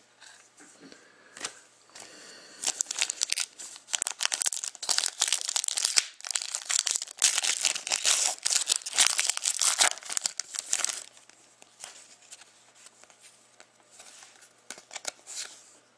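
Foil wrapper of a hockey card pack being torn open and crinkled by hand: a dense crackling run from about three seconds in that stops near eleven seconds, then softer rustling as the cards come out.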